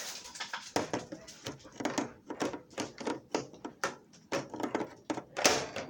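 Quick, irregular light steps clicking and tapping on a hard floor, several a second, with one louder knock near the end.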